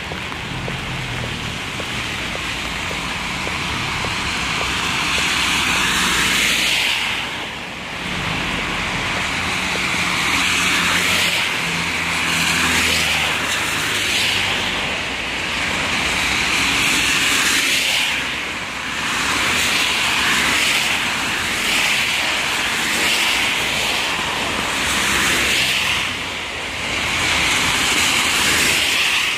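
City traffic on rain-wet roads: a steady hiss of tyres on wet tarmac, swelling as cars pass and easing in short lulls every few seconds.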